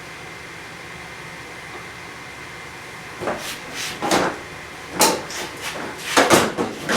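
Steady background hum, then from about three seconds in a run of short scrapes and clunks from handling the mower and its oil-draining gear.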